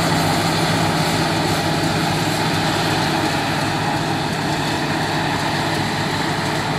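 New Holland self-propelled forage harvester running at work, picking up and chopping a grass swath: a steady heavy engine drone with held higher tones, growing slightly fainter as it moves away.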